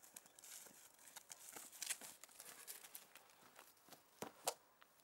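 Faint footsteps rustling and crunching through dry grass, then two sharper footfalls on tiled steps about four seconds in.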